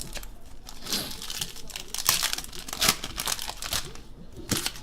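Trading-card pack wrapper crinkling and tearing as it is ripped open, in irregular crackly bursts.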